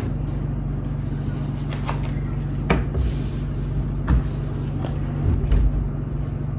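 A steady low hum with a few short knocks and rustles as baby clothes and small items are handled and set down on a tabletop.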